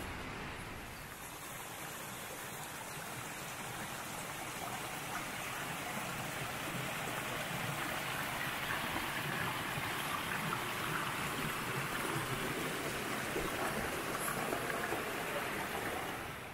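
Steady rush of a flowing stream, growing louder over the first several seconds and then holding steady.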